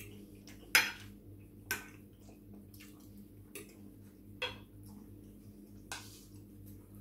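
Metal fork clinking and scraping on a plate of pasta, about five sharp separate clicks spread over several seconds, the loudest about a second in. A faint steady low hum runs underneath.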